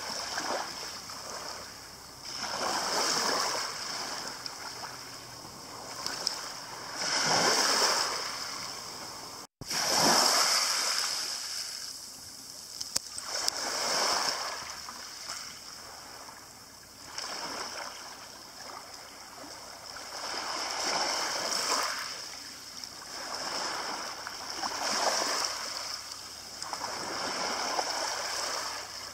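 Small waves breaking and washing up a pebble shingle beach, each swell of surf rising and fading every three to four seconds. There is a brief break in the sound about a third of the way in.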